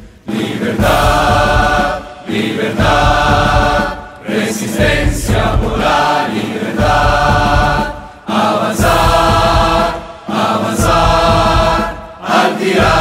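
A group of voices singing a chant-like anthem together in phrases about two seconds long, with short breaks between them and a low bass line underneath.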